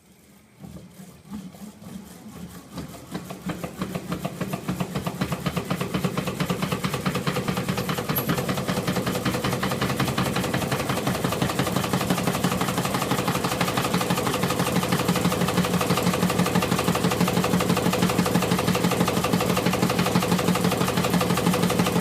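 Prototype magnet motor starting on its own and picking up speed over the first few seconds, then running steadily with a rapid, even clicking.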